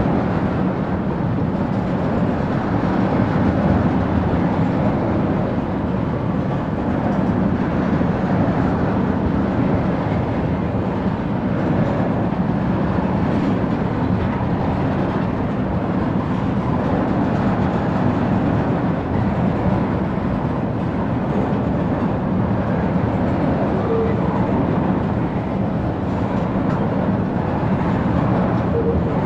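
Railroad tank cars of a freight oil train rolling past at steady speed: a continuous noise of steel wheels running on the rails that holds even throughout.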